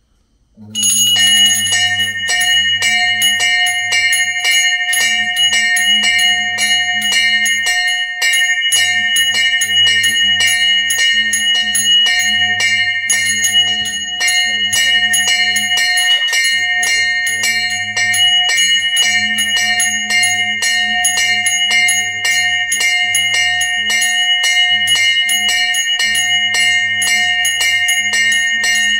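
Temple bells ringing rapidly and continuously for the lamp aarti, starting suddenly about a second in, struck several times a second with their tones held. A deeper pulsing sound runs underneath in stretches.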